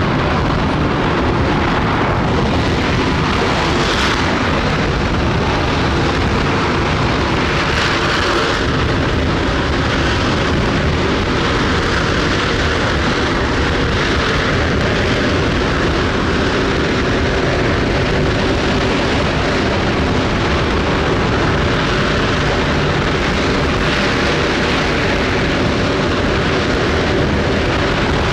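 Space Shuttle Main Engine (RS-25 liquid-hydrogen/liquid-oxygen rocket engine) firing on its test stand: a loud, steady rushing rumble that holds at the same level throughout.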